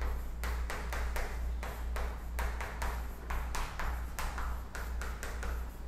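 Chalk writing on a blackboard: a quick, irregular run of sharp taps and short scrapes as numbers and brackets are chalked up, over a steady low hum.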